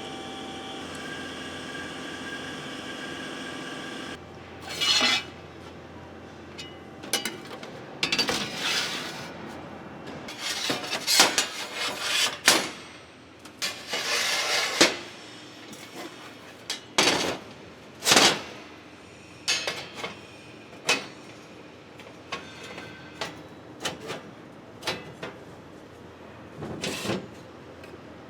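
Sheet-metal parts clanking and clinking as they are handled during bending work, in irregular knocks. A steady machine hum stops about four seconds in.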